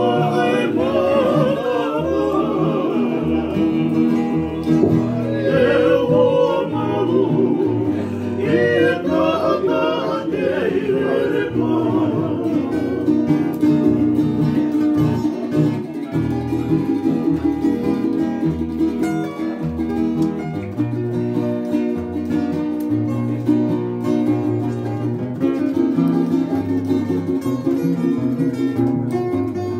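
Two acoustic guitars and a ukulele strumming a Tongan devotional song, with men's voices singing together for roughly the first dozen seconds. After that the instruments carry on alone.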